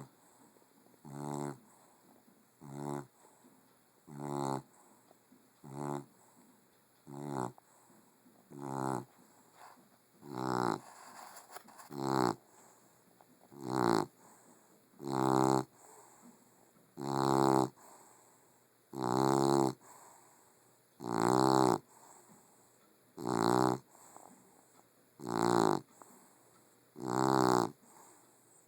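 A puggle (pug–beagle cross) snoring loudly and rhythmically: a long series of drawn-out snores, each with a clear pitch. They come about every second and a half at first, then from about ten seconds in grow longer, louder and slower, about one every two seconds.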